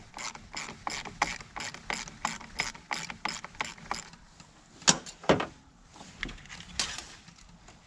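Ratchet wrench clicking as it loosens the nut on a car battery's positive terminal clamp, about five clicks a second for four seconds. A few sharper clicks and knocks follow.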